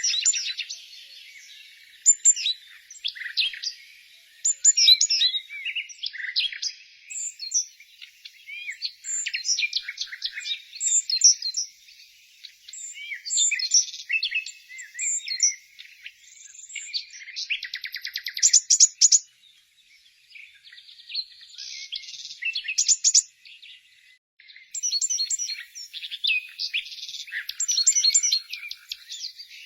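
Small songbirds chirping and singing together: a busy chorus of short high chirps, twitters and fast trills that comes in bursts with brief lulls between them.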